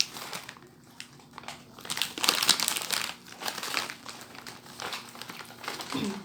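Packaged snack wrapper crinkling as it is handled, in irregular spells that are loudest about two seconds in.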